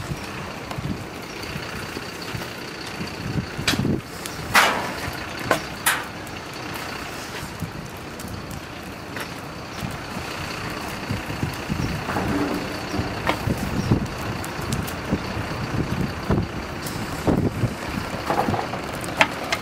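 Open wood fire of planks and scrap timber burning with a steady rushing noise, broken by sharp pops and cracks, several close together about four to six seconds in and more near the end.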